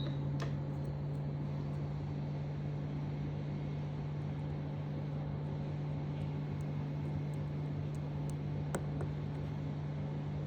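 Steady electrical hum with a fan-like hiss from repair-bench equipment running, with a couple of faint clicks.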